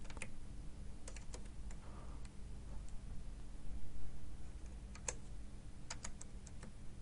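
Computer keyboard keys clicking as numbers are typed, in a few short runs of taps about a second in and again around five to six seconds in, over a low steady hum.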